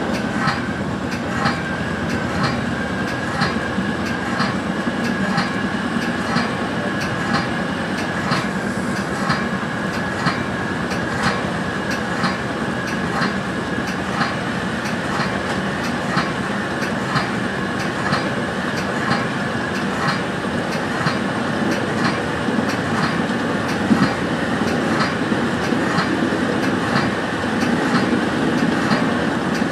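Metra commuter train running, heard from inside the cab car: a steady rumble with an even clickety-clack of the wheels passing over rail joints, about three clicks every two seconds, and a faint steady whine.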